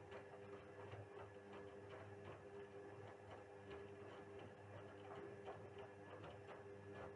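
Indesit WISL 62 washing machine turning its drum in the wash phase of a 60° synthetics program: a faint steady motor hum with many small irregular ticks.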